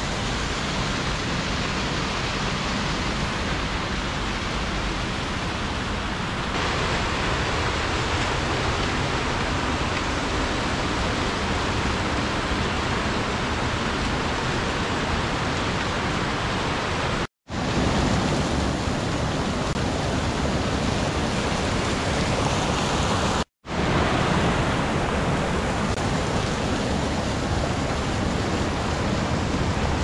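Waterfall rushing steadily, an even wash of falling water. The sound drops out completely for a split second twice, about two-thirds of the way through and again some six seconds later.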